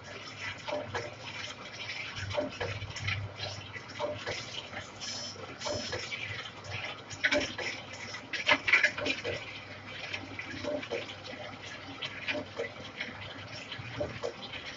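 Metal lathe turning a large steel pipe with a carbide insert cutter: an irregular crackle and clicking of the cut and breaking chips over a low steady hum.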